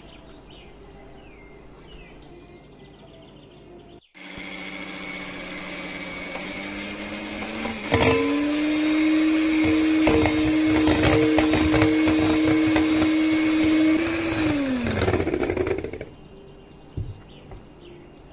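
Electric hand mixer whipping cream in a glass bowl. The motor starts about four seconds in at a low speed, jumps to a higher, steady whine with a click about halfway, and the beaters rattle against the glass. Near the end the whine falls in pitch and stops as the mixer is switched off.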